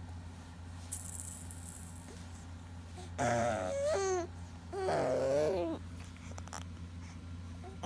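A brief shake of a toy rattle about a second in, then a five-month-old infant vocalizing in two drawn-out, gliding coos, with another starting at the very end.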